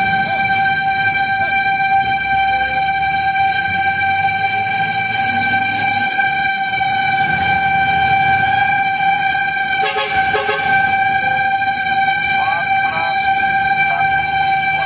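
Fire truck's warning signal sounding one steady, high, unbroken tone over the low running of the truck's engine, with a brief clatter about ten seconds in.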